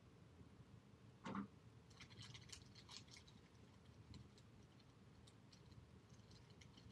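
Faint small clicks and rustling from an object being handled in someone's hands, with one short, duller sound just over a second in.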